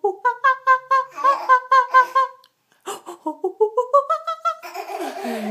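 A woman's voice imitating monkey calls: a quick run of rhythmic hoots at a steady pitch, then a second run of hoots climbing in pitch that ends in a harsher screech.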